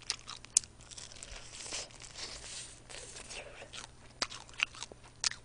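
Close-miked crunching and chewing of a crispy fried chicken wing, with scattered sharp crackles as the fried skin breaks.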